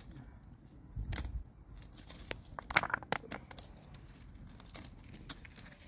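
Open wood fire crackling, with sharp snaps and knocks as sticks are shifted and pushed into it; a quick cluster of louder snaps comes about three seconds in.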